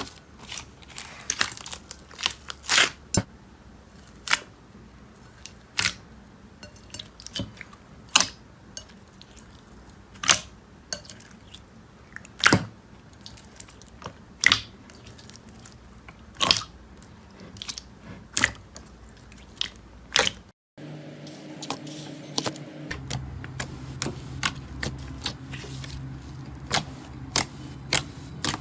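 Slime being poked and squeezed, its trapped air bubbles popping in sharp clicks about every two seconds, with fainter small crackles between. About two-thirds of the way through it cuts out for a moment and resumes over a steady low hum.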